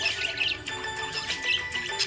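Budgerigars chirping and warbling in a dense run of short high chirps, with steady held tones underneath.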